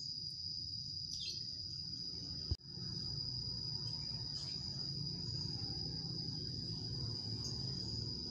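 Insects chirring steadily at a high, even pitch over a low rumble. There is a sharp click about two and a half seconds in, where the sound briefly drops out.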